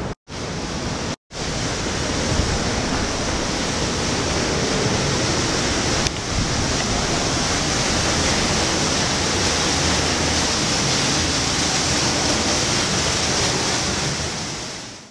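Indoor waterfall rushing steadily, a dense, even splashing hiss that cuts out briefly twice near the start.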